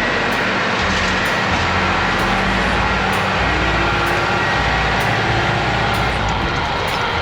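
Tractor engine running steadily under load while driving a power harrow, a loud continuous drone with its low hum swelling and easing a few times.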